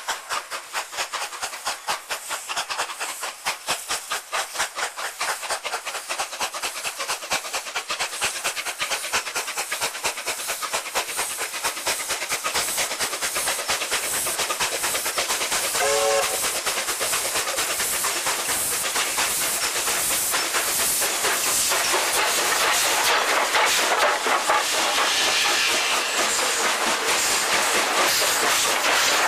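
Steam locomotive approaching under power, its rapid chuffing exhaust beats growing steadily louder. A short whistle sounds about halfway, and near the end the engine passes close with loud hissing steam.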